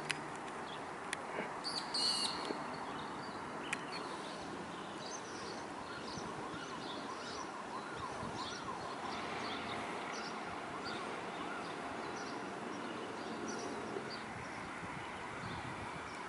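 Birds chirping and calling over a steady background hiss, with a few sharp clicks in the first few seconds.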